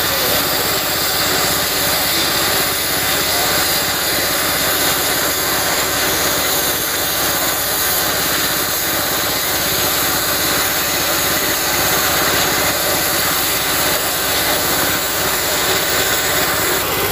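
Gas cutting torch hissing steadily as it burns through steel beams, with an engine running steadily underneath.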